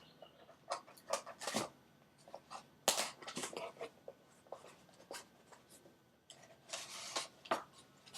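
Packaging of a boxed tarot deck being handled: irregular rustles and clicks, thickest about a second in, again around three seconds, and near seven seconds.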